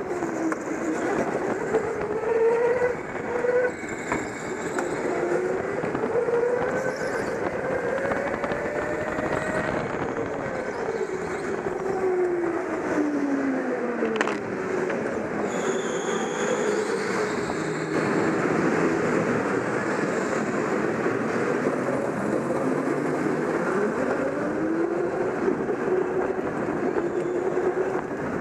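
Go-kart motor running hard, heard from the driver's seat, its pitch climbing and falling as it accelerates and slows through the corners. The pitch sinks lowest about halfway through, then climbs again later.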